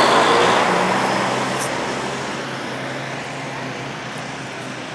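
A heavy tractor-trailer drives close past, its engine and tyre noise fading steadily as it moves away.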